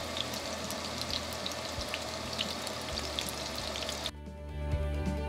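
Burger patties topped with cheese slices sizzling and crackling in a frying pan, with background music underneath. About four seconds in, the sizzle cuts off and only the music remains.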